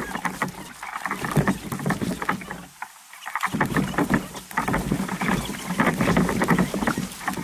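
Paddle splashes and water rushing past a tandem kayak's hull as it is paddled down a river: dense, crackly splashing. It drops away briefly about three seconds in.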